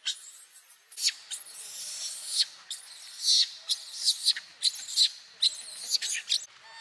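Infant long-tailed macaque screaming, a rapid series of about a dozen shrill, high-pitched cries: a hungry baby calling for its mother to nurse.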